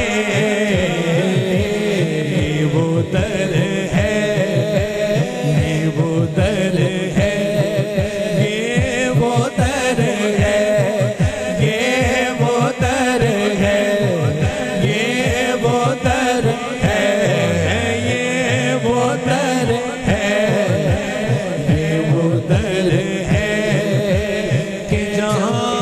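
Male naat reciter singing an Urdu naat into a microphone, amplified through a sound system: long held, ornamented vocal lines over a steady rhythmic backing.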